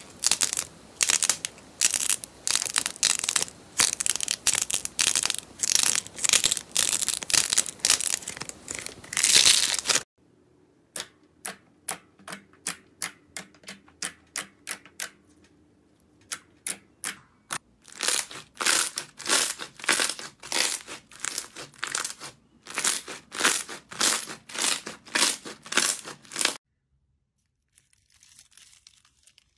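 Hands squeezing and poking slime and clay, making a series of crackling, clicking and popping sounds. About ten seconds of dense crackling as a yellow clay piece is pressed are followed by quieter rapid clicks as fingers poke a glossy purple slime. Louder regular pops come next, and the sound is faint near the end.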